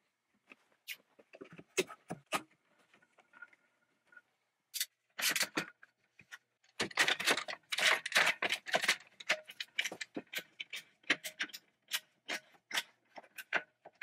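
One-handed bar clamps being positioned and ratcheted tight: a run of sharp clicks, knocks and small metal rattles, sparse at first and coming thick and fast in the second half.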